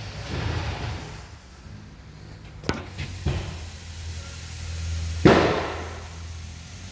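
A steady low hum, with two sharp clicks near the middle and a loud bang about five seconds in that trails off over about a second, like a slam or hammer blow in a workshop.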